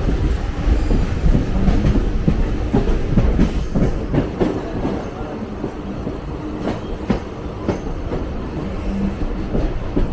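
Train running over the track, heard from aboard: a steady low rumble with irregular clicks and clacks of the wheels over rail joints.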